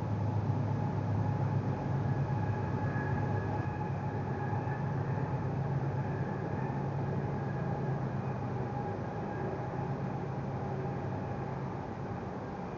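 A steady low mechanical hum with a faint steady whine above it, easing off slightly toward the end.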